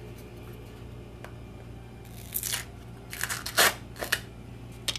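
A plastic spice shaker of dry seasoning being shaken in several short rattling bursts, starting about two seconds in.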